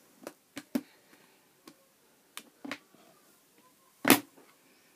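Clicks and knocks of a clear plastic tub's snap-on lid being pressed shut and the plastic tubs being handled, several small clicks in the first three seconds and one louder knock about four seconds in.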